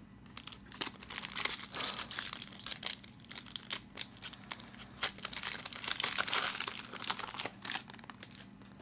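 Foil wrapper of a hockey card pack being torn open and crinkled by hand, a dense run of irregular crackles that stops shortly before the end.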